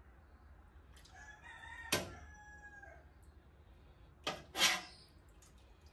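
A rooster crowing once, a drawn-out call of about two seconds. A sharp metallic clink of a ladle against a stainless steel soup pot cuts in midway, and about four seconds in two louder scraping clatters of the ladle in the pot follow.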